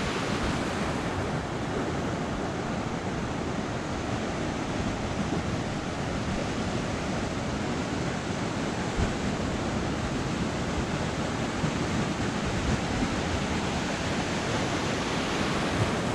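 Ocean surf breaking and washing up a sandy beach: a steady rush.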